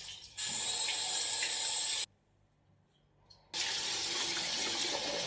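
Steady rushing of running water, which cuts off abruptly about two seconds in and comes back about a second and a half later.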